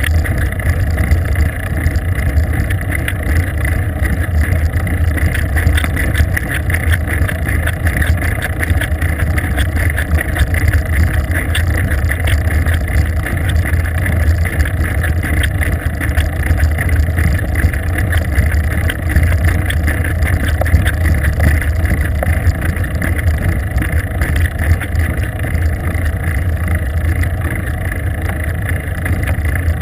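Steady low rumble picked up by a bicycle-mounted GoPro camera while riding on asphalt: wind over the camera and the bike's tyres and frame vibrating on the road surface.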